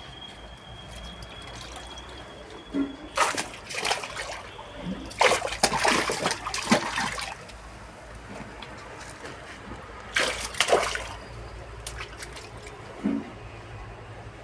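Water splashing and sloshing in short bursts, about three seconds in, for a couple of seconds from about five seconds, and again around ten seconds, as live snakehead murrel are handled in water.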